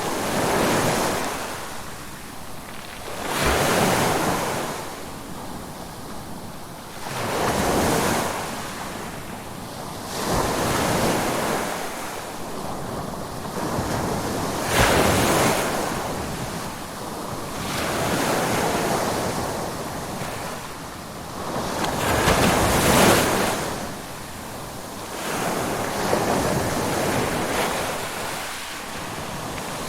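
Ocean waves breaking and washing up the shore, the surf swelling and falling back roughly every three to four seconds.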